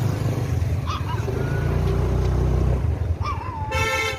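A puppy stuck inside a wall gives short, high yelping cries, a sign of its distress. A passing motorcycle's engine rumbles underneath, loudest in the middle, and a brief steady tone sounds near the end.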